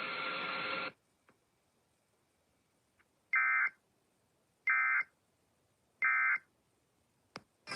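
Weather-radio background hiss cuts off about a second in. Then come three short, harsh digital data bursts about 1.3 s apart: the EAS end-of-message (SAME) tones that close the severe thunderstorm warning. A click follows near the end.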